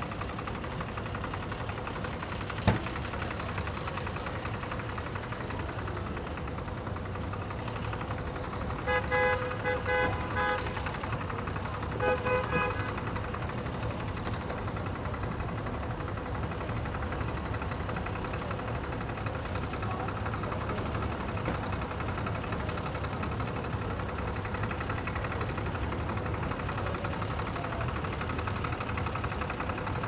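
An engine idling steadily, with a horn sounding twice: once for about a second and a half, about nine seconds in, then briefly again about three seconds later. A single sharp click comes near the three-second mark.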